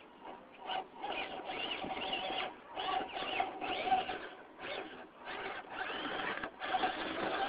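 Losi Night Crawler radio-controlled rock crawler's electric motor and gear drivetrain whining in short, repeated bursts as the throttle is pulsed on and off while it climbs over rocks.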